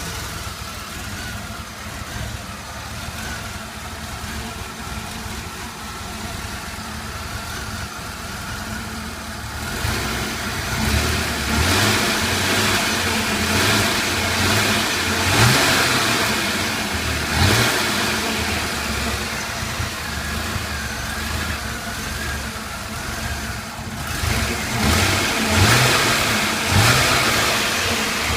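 Chevrolet S-10 Blazer engine idling steadily for about ten seconds, then running louder and revved in short blips several times. The owner's complaint is a rough idle and hard starting.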